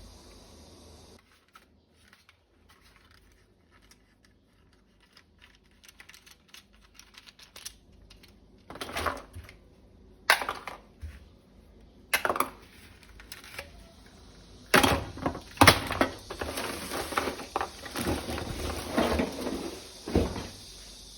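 Hard plastic parts being handled: scattered faint clicks that build into sharp knocks and a busy clatter toward the end.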